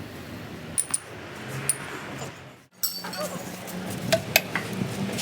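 Light metal clinks and taps of gearbox parts and hand tools being handled. The sound drops out briefly about halfway through, and a low steady hum runs under the later clinks.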